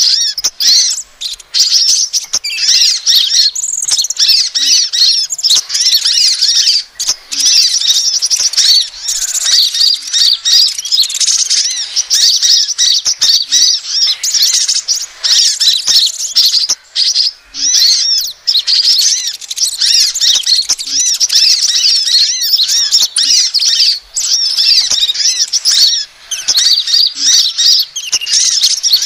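Sunbird lure call (suara pikat) of 'kolibri ninja' and crimson sunbird (sepah raja): dense, rapid high-pitched twittering and chirping, many short notes overlapping almost without a break.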